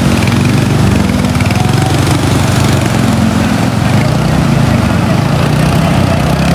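Small two-wheeler engine running hard while crossing floodwater, its pitch rising and falling as the throttle is worked. Under it is a steady hiss of heavy rain and fast-flowing water.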